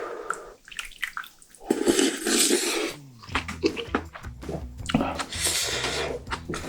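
Cup-ramen broth with rice being slurped: two long wet slurps, the first about two seconds in and the second about five seconds in.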